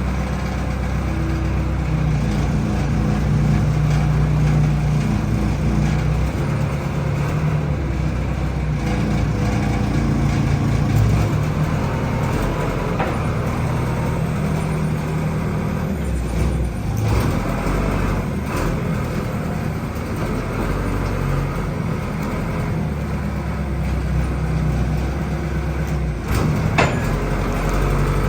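A large engine running steadily with a low hum, with a few sharp clicks or knocks in the second half.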